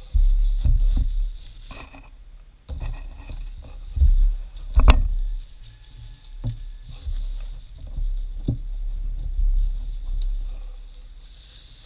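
White foam packing wrap rustling and a cardboard mailer being handled as a wrapped item is lifted out, with scattered knocks on a wooden table; the sharpest knock comes about five seconds in.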